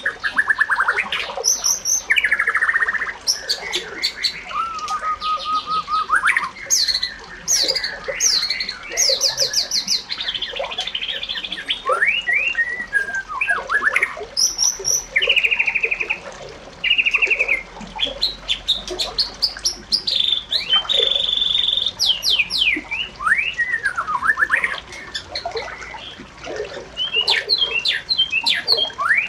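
Bird song: a busy string of varied chirps, trills, whistles and squawks, changing from phrase to phrase, with a short pause about two thirds of the way through.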